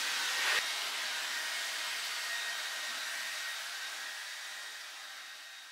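Hair dryer running steadily: a whooshing hiss of air with a faint high whine, gradually fading toward the end. There is a brief tap about half a second in.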